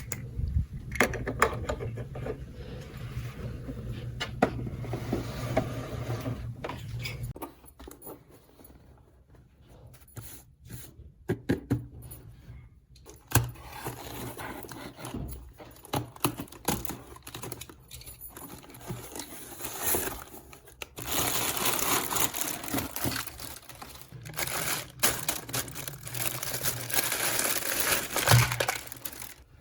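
Plastic packaging crinkling and tearing as a toy set is unboxed, with scattered clicks and taps of small plastic parts being handled. The crinkling is densest and loudest over the last third, and quieter stretches fall in between.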